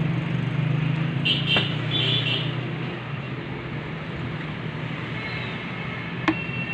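Traffic noise: a motor vehicle's engine running steadily, fading after about three seconds. A single sharp click comes near the end.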